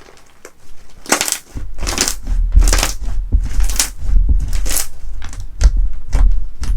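Crunchy slime being pressed and crushed by hand in a run of crackling crunches, roughly one a second, each with a low thump, starting about a second in.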